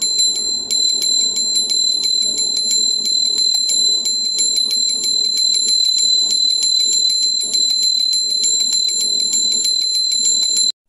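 Title-card sound effect: a steady high-pitched tone with fast, even ticking over a low noise bed, cutting off suddenly just before the end.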